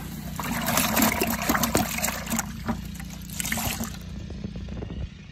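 A paper towel dipped and squeezed out in a bucket of soaking water: water splashing and trickling back into the bucket, dying down about four seconds in. A steady low hum runs underneath.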